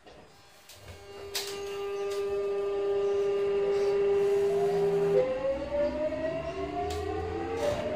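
Sotetsu 8000-series electric train pulling away. Its VVVF inverter hums one steady tone, then about five seconds in shifts into several rising whines as the train gathers speed. A few sharp clicks are heard along the way.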